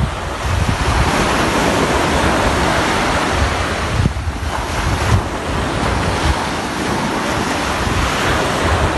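Waves breaking on a sandy shore, with wind buffeting the microphone in gusts.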